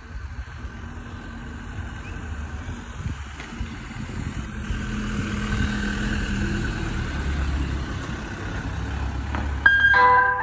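Ford Transit ice cream van's engine running, growing steadily louder as the van approaches and drives past. Near the end its chimes start playing a tune.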